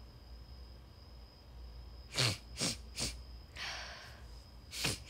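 Mouth and breath sounds from a woman close to a phone microphone: three quick sharp clicks about two seconds in, then a breathy exhale, then one more click near the end.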